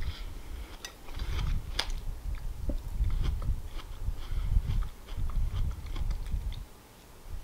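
Close-up chewing of a mouthful of watermelon: a steady run of wet chewing sounds with scattered sharp clicks, pausing briefly near the end.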